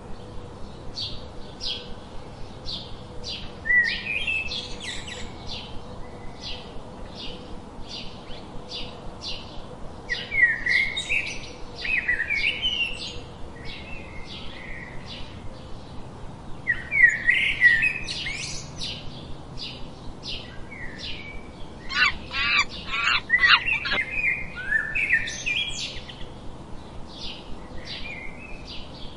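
Birds chirping: one bird repeats a short, high chirp about twice a second, while others break in with bursts of varied, warbling song, loudest about two-thirds of the way through.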